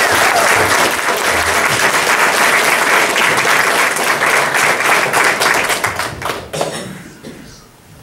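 Audience applauding, which dies away about seven seconds in.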